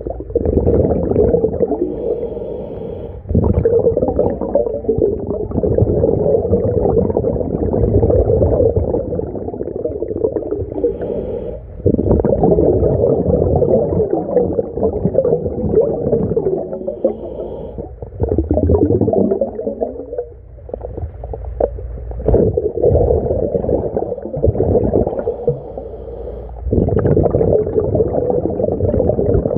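A scuba diver's exhaled breath bubbling out of a mini-tank regulator underwater. It comes as long bursts of gurgling and rumbling every few seconds, with short lulls between them while he breathes in.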